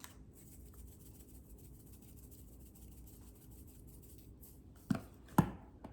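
Quiet kitchen handling of seasoning containers over raw chicken wings: faint rubbing and light ticks, then two short sharp clicks about half a second apart near the end.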